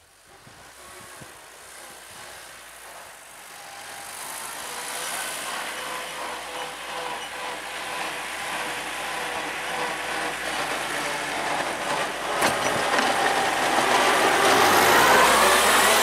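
Homemade tractor's engine running as it drives closer, growing steadily louder from faint to loud, with a single sharp knock about twelve seconds in.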